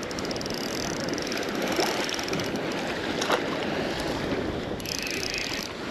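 Steady wash of lake water with wind noise on the microphone.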